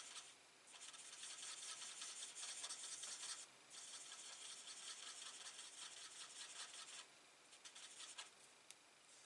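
Faint scratchy rubbing of a colouring tool drawn back and forth over cardstock, with two short pauses, thinning to a few light ticks near the end.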